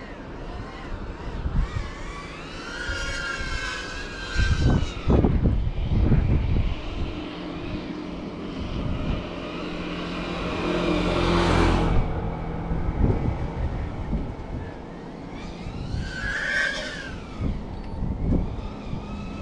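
FPV drone's motors buzzing as it flies nearby, the pitch sliding up and down with the throttle. About ten seconds in, a rush builds as it sweeps close past and cuts off sharply about two seconds later. Low wind thumps hit the microphone early on.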